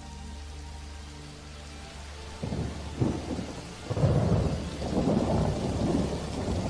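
Thunder rumbling: it breaks in about two and a half seconds in and grows heavier a second or so later, with rolling swells.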